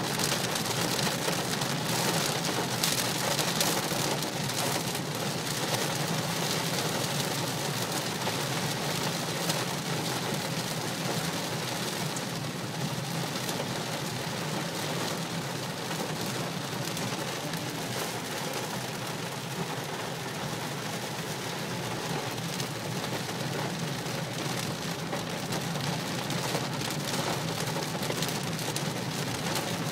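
Heavy rain and hail pelting a car's roof and windshield, heard inside the cabin: a dense hiss of water with many sharp hits, over a steady low road hum. It eases slightly in the middle and picks up again later.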